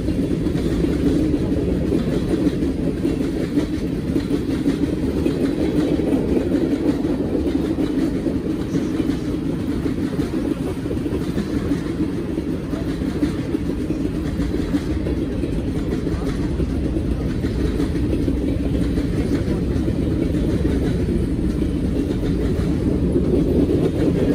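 Freight cars (tank cars and covered hoppers) rolling past close by: a steady rumble of steel wheels on the rails.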